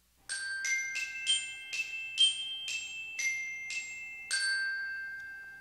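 Short outro jingle of glockenspiel-like struck notes playing a melody of about ten notes, roughly two a second; the last note rings on and slowly fades.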